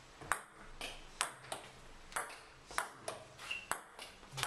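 Table tennis ball clicking against the paddles and bouncing on the table during a rally, about two sharp clicks a second, some in quick pairs.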